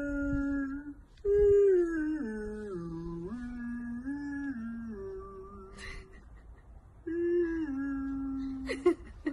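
A person humming a slow tune in long held notes that step up and down in pitch, breaking off briefly about a second in and again around six seconds. Near the end comes a short, sharp rising sound.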